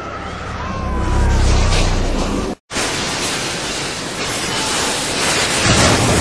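Rushing-water sound effect for a sinking ship, with a low rumble over the first couple of seconds. It drops out abruptly for a moment about two and a half seconds in, then the rushing water carries on steadily.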